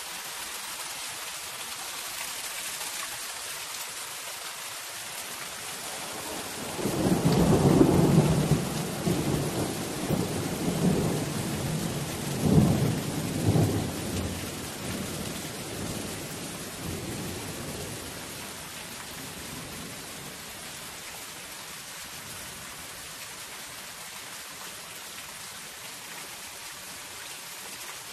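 Steady soft rain on a zinc sheet-metal roof. About a quarter of the way in, a low rumble of thunder swells up, peaks twice, and dies away by about two-thirds through.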